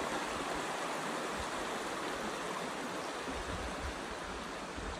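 Shallow, rocky mountain creek running over stones: a steady rush of flowing water.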